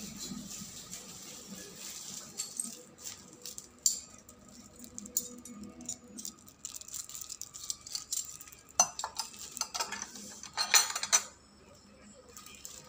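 Tableware being handled: a scattered few sharp clinks and knocks of a china plate, a metal sauce boat and cutlery, with a quick cluster near the end that is the loudest. Under them runs a faint steady hum.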